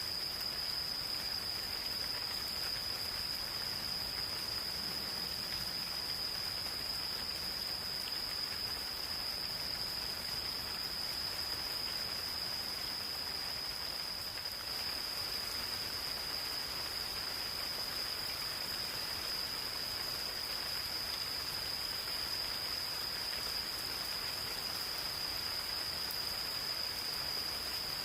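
Gentle rain falling steadily in a forest, with insects calling in a continuous high-pitched trill held on one pitch throughout.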